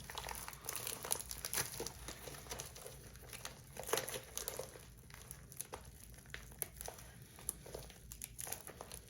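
Packaging crinkling and rustling as a tightly wrapped parcel is handled and worked open, with irregular small crackles throughout.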